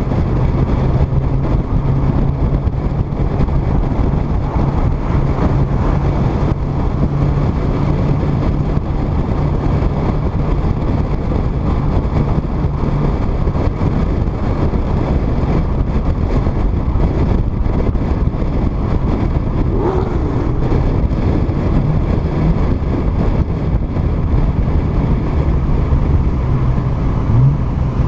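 Nissan Skyline R32 GT-R cruising at a steady road speed, heard through a camera mounted on the outside of the car: heavy wind rush and road rumble over a steady engine hum that fades about halfway through.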